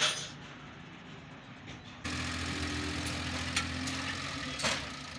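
Truck diesel engine idling steadily; it comes in suddenly about two seconds in. There is a single sharp knock near the end.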